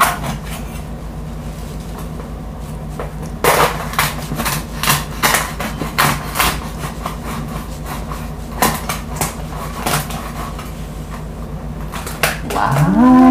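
A large kitchen knife cutting through the crisp, hard skin of a whole roast suckling pig (lechon): sharp crackles and cracks as the skin breaks, in loose clusters, over a steady low hum. A voice exclaims briefly near the end.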